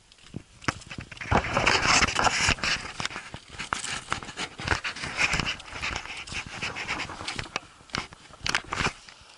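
Footsteps and rustling on frozen ground close to the microphone, uneven and loudest a second or so in, with panting breaths.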